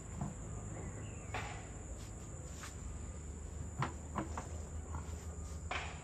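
Steady high-pitched insect buzz over a low rumble, with a few sharp knocks from road construction work, two close together about four seconds in and one near the end.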